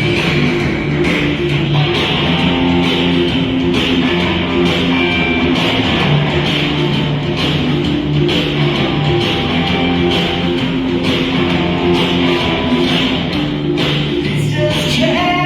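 Guitar-led instrumental music with a steady beat.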